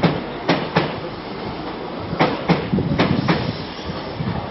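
A slow-moving train's wheels clacking over rail joints: sharp clacks, mostly in pairs, over a low rumble of the train rolling.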